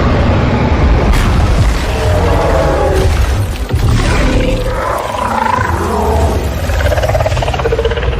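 Loud dramatic score over a deep, constant rumbling and roaring sound effect, with a brief dip about three and a half seconds in.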